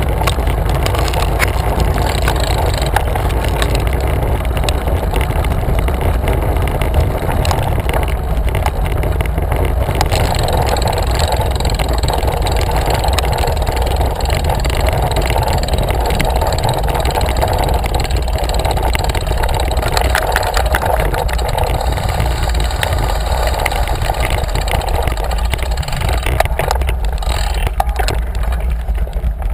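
Steady wind rushing and rumbling over the microphone of a handlebar-mounted camera on a road bicycle while riding.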